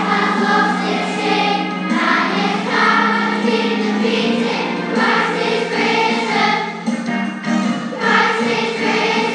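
A group of school children singing a song together in a church, in phrases that break about every three seconds over a steady held accompaniment note.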